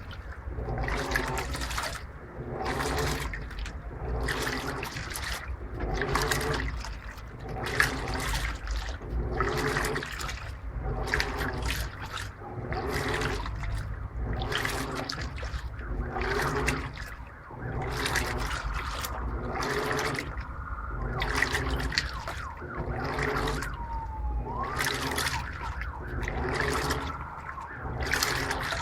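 Electrolux LTP15 15 kg top-load washing machine in its agitation stage on the Normal program, turbo agitation off. The agitator swishes back and forth in an even rhythm a little more than once a second, with water sloshing through the clothes on each stroke and the motor humming under it.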